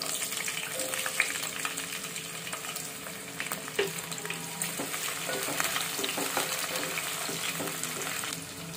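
Sliced onions and green chillies sizzling in hot oil in a steel pot: a steady frying hiss with scattered small pops and crackles.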